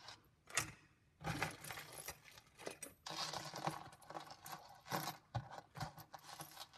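Metal jewelry chains and plastic star beads jangling and clinking as they are picked up and pulled apart by hand, a run of small rattling clicks with a sharp click just after the start.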